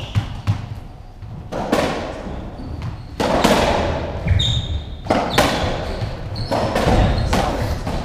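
Racketball rally on a squash court: the hollow rubber ball struck by the rackets and smacking off the walls and floor in a string of sharp, echoing hits, with a few short high squeaks of court shoes on the wooden floor.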